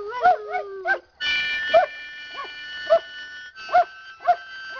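A half-mastiff, half-rottweiler dog howling along to a harmonica in short, arching yowls, one about every half second. The harmonica holds sustained chords that come in after a brief pause about a second in.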